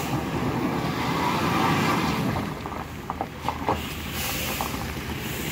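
Toyota Innova MPV driving slowly past over a rough gravel and dirt road, its engine running and tyres crunching on the loose surface, louder in the first couple of seconds. A few short sharp clicks come about three seconds in.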